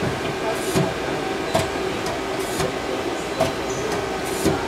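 The 12-station VDI 30 turret on an Okuma Genos L200E-M CNC lathe is indexing from tool to tool, giving a short clunk about every 0.8 seconds. Under the clunks is the steady hum of the running machine.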